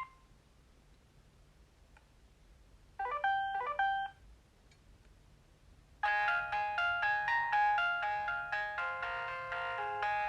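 Alcatel OT 735 mobile phone playing its built-in ringtones through its small speaker: a short melodic phrase about three seconds in, then after a pause a new ringtone of quick, chiming notes with several sounding together starts about six seconds in and keeps going.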